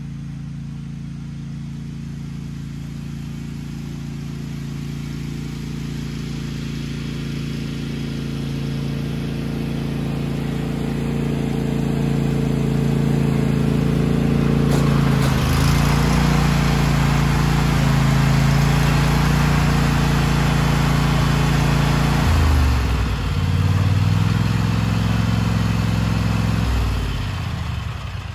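Cub Cadet riding mower's engine running as it tows a load, growing louder and shifting in pitch twice. Near the end it slows and cuts off.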